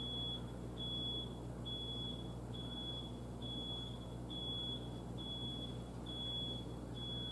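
Someone else's electronic alarm beeping: a single high tone repeated steadily a little more than once a second, each beep about half a second long.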